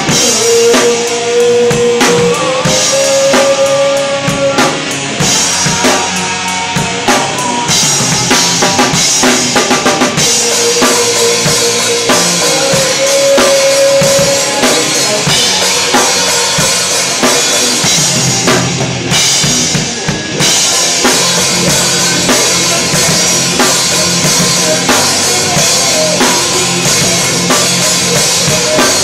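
Live rock band playing, dominated by a drum kit close to the microphone: bass drum, snare and cymbals struck hard in a dense, driving beat. The rest of the band plays underneath, with long held notes about a second in and again around the middle.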